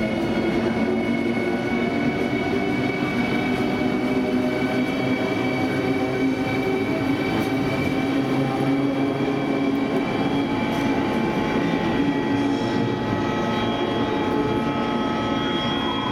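Sapsan (Siemens Velaro RUS) electric high-speed train at close range: a steady hum and hiss from its electrical and cooling equipment, with several steady whining tones; a few new higher tones come in near the end.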